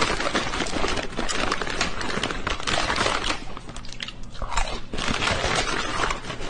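Close-up crunching and chewing from a cat-meme clip of a cat eating a crunchy snack, dense crunches following one another with no pause.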